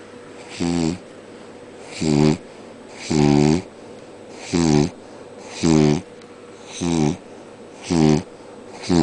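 Dog snoring in its sleep: a short, pitched snore about once a second, about eight in all.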